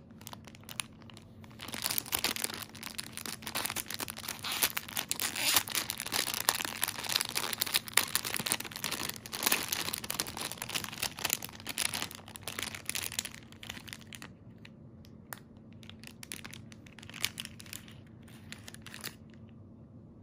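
Thin clear plastic packaging bag crinkling as it is handled and opened to take out a card of earrings: dense crackling through the first two-thirds, thinning to scattered crinkles near the end.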